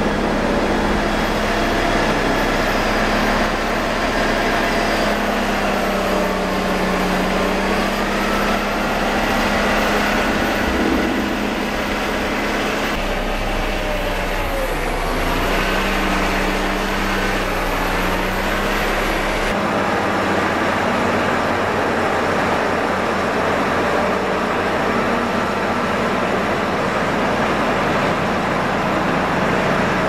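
Diesel engines of a Caterpillar wheel loader and an Ammann ASC 110 padfoot roller working a pile of chopped maize silage. The engine pitch rises and falls as the machines push and compact, and the sound changes abruptly twice.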